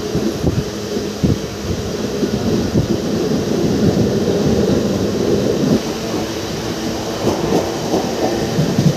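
Passenger train running at speed, heard from inside the carriage: a steady rumble of wheels on rails with irregular knocks and rattles.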